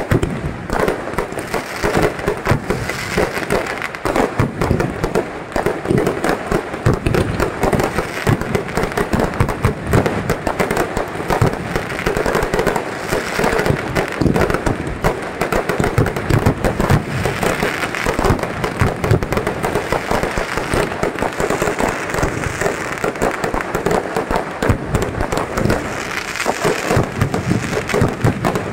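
Aerial fireworks in a dense, continuous barrage: rapid bangs and crackling bursts overlapping with no break.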